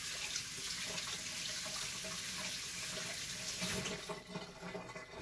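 Water running steadily from a tap, stopping about four seconds in.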